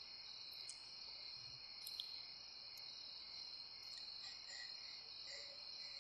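Faint, steady chorus of crickets, with a few short, higher chirps standing out now and then.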